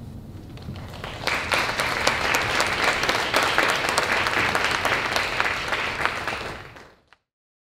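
Audience applauding, swelling about a second in, then fading out and cutting to silence near the end.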